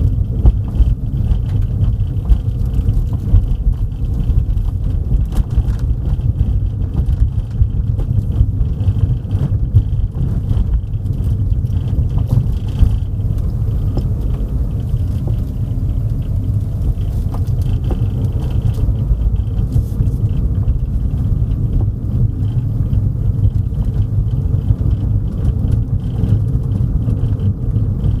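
Car driving, heard from inside: a steady low rumble of road and engine noise.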